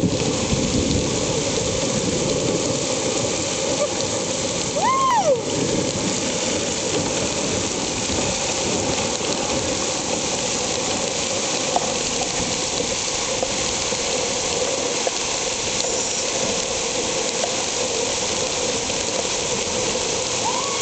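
Heavy rain falling steadily, a continuous hiss of rain on wet ground and running floodwater. About five seconds in, a short high call rises and falls over it.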